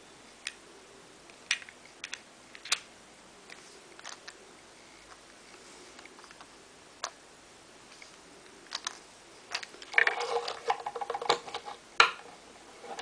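Scattered sharp clicks and taps of a Stanley ratcheting screwdriver, its metal shaft and bits being handled on a wooden table, then a dense run of clicking and rattling about ten seconds in.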